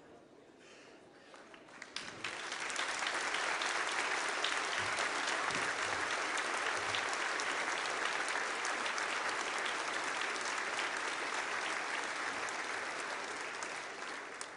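Audience applauding: the clapping swells about two seconds in, holds steady, and tapers off near the end.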